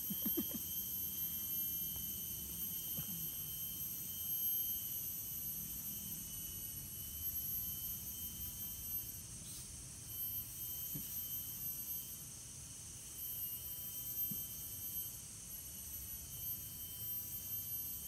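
A chorus of rainforest insects drones steadily at a high pitch, over a faint low rumble.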